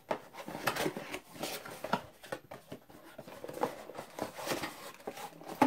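Cardboard box being opened and its cardboard insert pulled out: irregular rustling, scraping and light taps of cardboard handled by hand.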